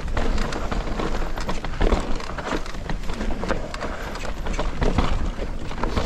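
Full-suspension mountain bike descending a rough trail: tyres rumbling over the ground with a rapid, irregular clatter of knocks from the frame, chain and suspension, and wind buffeting the microphone.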